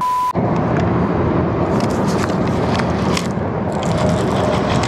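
A TV colour-bars glitch transition: a short burst of static with a steady 1 kHz test tone that cuts off after about a third of a second. It is followed by steady rushing noise with scattered small clicks.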